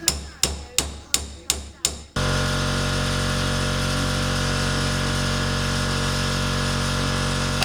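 Tool work on a bicycle fork: sharp rhythmic strikes, about three a second, then about two seconds in a steady drone with several fixed tones cuts in abruptly and holds.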